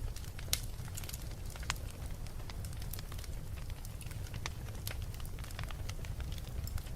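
Wood fire burning in a fireplace: irregular sharp crackles and pops over a steady low rumble, the sharpest pop about half a second in.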